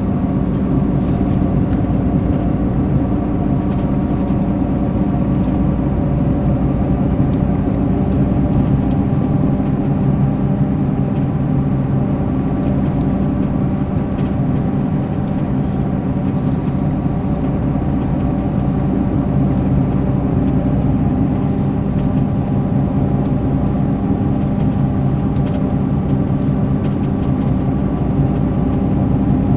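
Mercedes-Benz O500 RSD BlueTec5 coach's six-cylinder diesel engine running at a steady, even speed.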